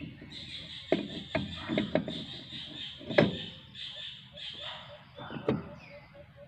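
Iron brake drum of a Bajaj RE three-wheeler knocking and scraping as it is worked by hand onto the rear hub over the brake shoes, with several sharp knocks, the loudest about three seconds in.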